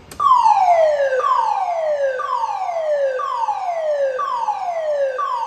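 Alarm tone from a PAGA (public address and general alarm) system's horn loudspeakers under test. A loud pitched tone sweeps downward and repeats about once a second.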